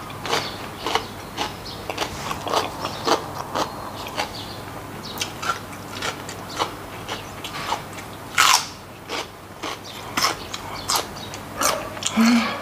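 Close crunching and chewing of a raw green vegetable stalk: irregular crisp crunches with wet chewing between them, the loudest crunch about eight and a half seconds in.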